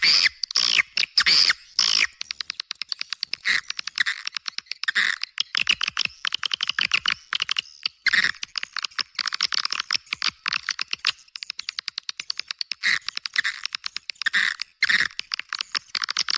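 Recorded swiftlet calls from a swiftlet-house lure track: fast trains of dry clicks mixed with short chirps and twitters, many birds calling at once, with everything below the birds' range cut away.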